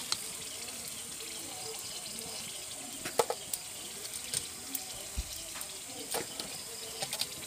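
Breaded crab deep-frying in a wok of hot oil over a wood fire: a steady sizzle, with scattered sharp pops and crackles.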